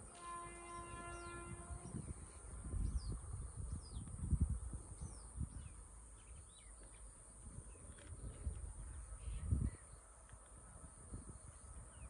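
A distant locomotive horn holds one note for the first two seconds or so, then stops. After that, gusts of wind buffet the microphone and birds chirp now and then.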